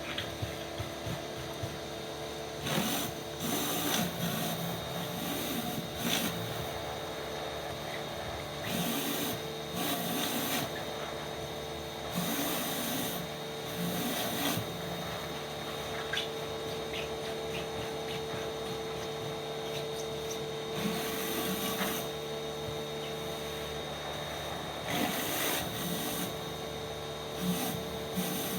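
Pressure washer running with a steady hum, with irregular bursts of spray hiss every few seconds.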